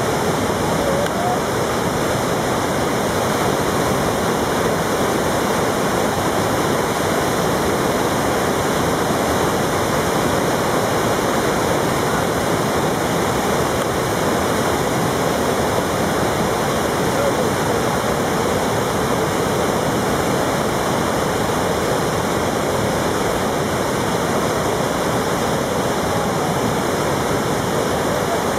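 Steady rush of the Gave de Pau river running high through rapids, its large breaking whitewater waves making an unbroken wall of water noise.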